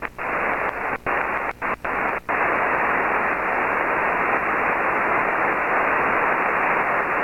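Amateur radio receiver putting out a loud hiss of noise: the horrible noise on the band. It cuts in and out several times early on, then runs on as a steady hiss.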